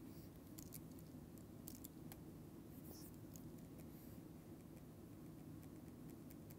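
Near silence: room tone with faint scattered clicks and scratches of a stylus drawing on a tablet.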